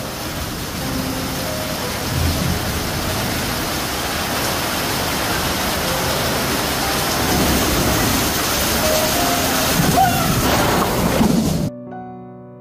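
Heavy rain pouring in a thunderstorm, with thunder, as a steady loud hiss that swells a little near the end and then cuts off suddenly. Soft piano notes ring out and fade afterwards.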